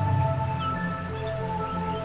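Background music with long held notes and slow chord changes.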